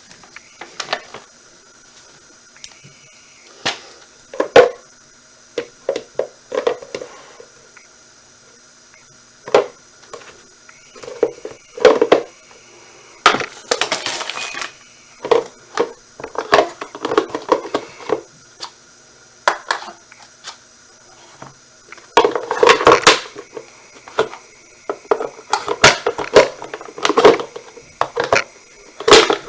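Hard plastic parts of a pet water fountain being handled and pressed together: a scattered series of sharp clicks, knocks and rattles in irregular clusters, as pieces are pushed and fitted to lock them in place.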